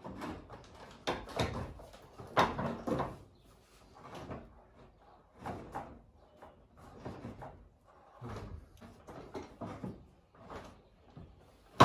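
Irregular clunks, knocks and scrapes of metal parts and tools being handled, a dozen or so short sounds with pauses between them, as the rebuilt Honda Dio engine is fitted back into the scooter.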